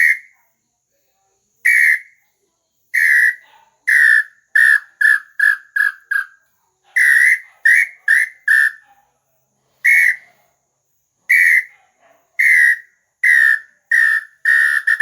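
Bird-call whistle (pio) blown in a series of loud, separate whistled notes, including a quick run of five short notes about halfway through, and breaking into a fast rolling trill near the end.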